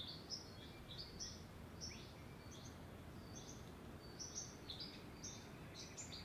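Birds chirping: short high notes, two or three a second, over a steady low background rumble.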